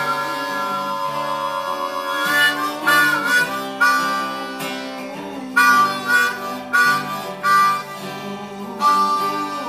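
Harmonica playing over an acoustic guitar, with several short, loud harmonica blasts in the second half.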